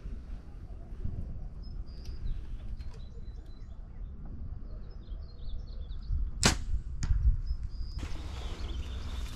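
A compound bow shot: a sharp crack of the string on release about six and a half seconds in, then about half a second later the thud of the arrow striking a foam 3D elk target. Faint bird chirps come before the shot.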